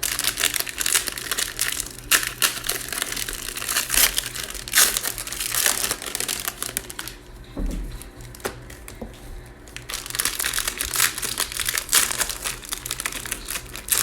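Cellophane wrappers of trading card packs being crinkled and torn open by hand, in two busy bouts with a quieter lull between them and a soft thump about halfway through.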